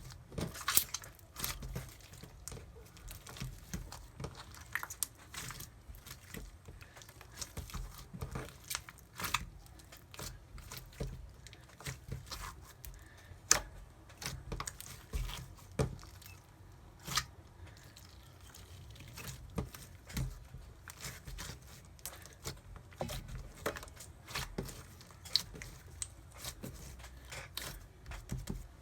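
Slime being worked and stretched, giving irregular sticky clicks and crackles with no steady rhythm.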